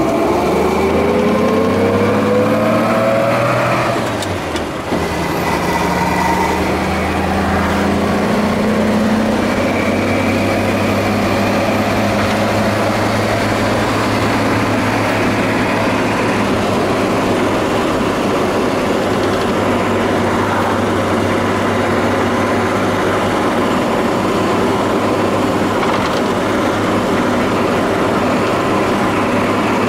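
1948 Chevrolet pickup's straight-six engine heard from inside the cab, rising in pitch as the truck accelerates, then dipping briefly about four seconds in at a gear change and running steadily at cruising speed.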